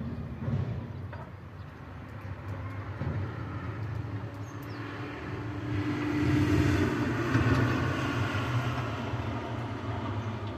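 Passing motor vehicle: a low engine rumble that grows louder about six seconds in and then eases off a little.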